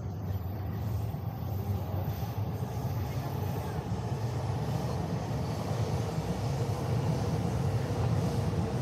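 Steady low rumble of passing road or rail traffic, slowly growing louder.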